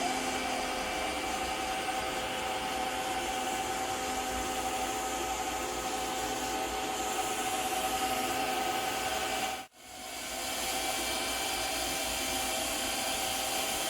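Robot vacuum cleaner running across a hard floor, a steady whir of its suction fan and brushes with a few constant tones. The sound cuts out sharply about ten seconds in and swells back within half a second.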